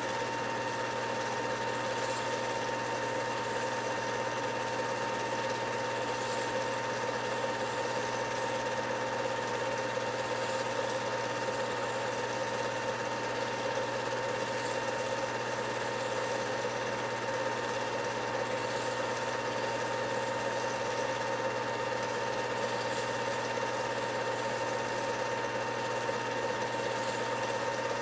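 8mm film projector running: a steady mechanical whir with a constant hum and a thin steady tone.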